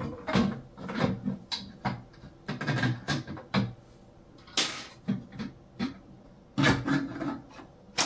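Handling noise as a glass printer door is worked onto 3D-printed plastic hinges: scattered knocks, clicks and rubbing of glass and plastic against the frame, with a sharp knock a little past halfway.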